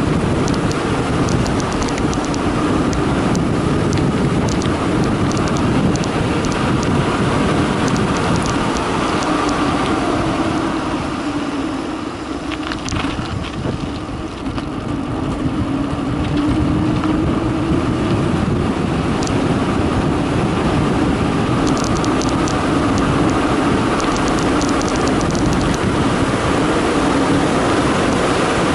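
Wind rushing over the microphone and tyre noise of a mountain bike coasting fast down a concrete road, with bursts of light clicks early on and again near the end. The rush eases for a few seconds about halfway through, then builds again.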